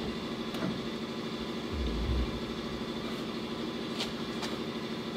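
A steady machine hum with a fast, even pulse, and a couple of low thumps about two seconds in.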